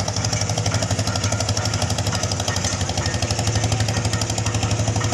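Boat diesel engine running steadily with a rapid, even chugging.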